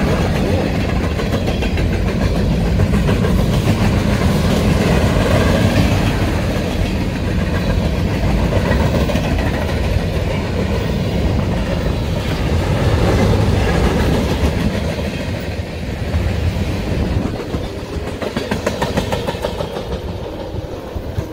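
Freight train cars, covered hoppers and tank cars, rolling past close by, their steel wheels rumbling and clacking over the rail joints. The sound grows fainter over the last few seconds as the end of the train moves away.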